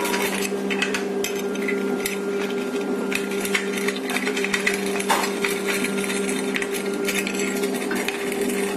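Steady low hum with scattered small clicks and light metallic clinks from screws and sheet-steel brackets of a printer stand being handled and fitted.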